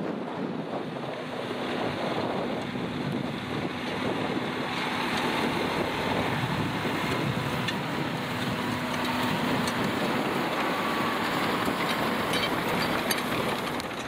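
John Deere 6215R tractor's diesel engine running steadily under load while pulling a plough, with wind rushing over the microphone.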